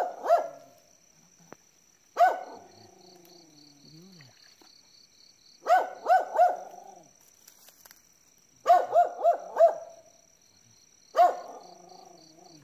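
A dog barking in short volleys: two barks at the start, a single bark about two seconds in, three quick barks, then four, then one more near the end. Two of the single barks trail off into a falling whine.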